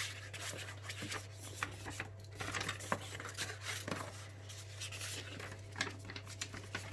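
A folded paper poster and cardboard packing handled by hand: soft rustling and rubbing with scattered light taps and clicks, over a steady low hum.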